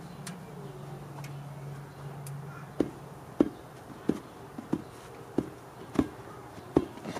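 A run of sharp, evenly spaced knocks, about one every two-thirds of a second, starting a little under three seconds in. Under the first half is a low steady hum that fades out as the knocks begin.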